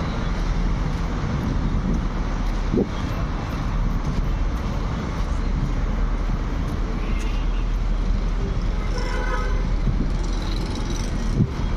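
Steady road traffic noise from passing cars, with a low rumble throughout and a short pitched tone about nine seconds in.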